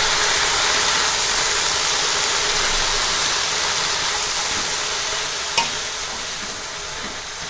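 Red amaranth leaves (laal saag) sizzling in hot oil in a kadhai as they are stirred with a wooden spatula. The sizzle slowly fades, with a single sharp click about five and a half seconds in.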